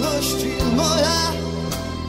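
A slow song with a single sung vocal melody over steady instrumental backing.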